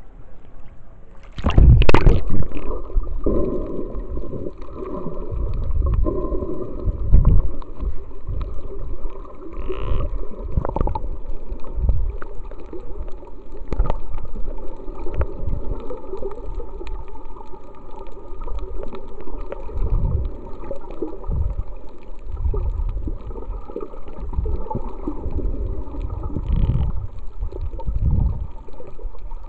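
An action camera plunges under the sea surface with a splash, then picks up muffled underwater water movement: irregular low rumbles and gurgles of water against the camera housing.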